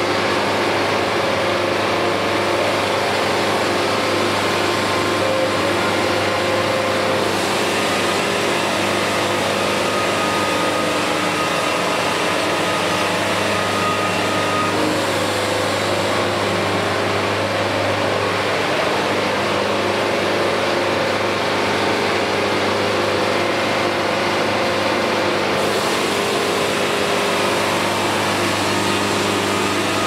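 Portable band sawmill running steadily, its motor and band blade sawing a poplar log as the head travels along it.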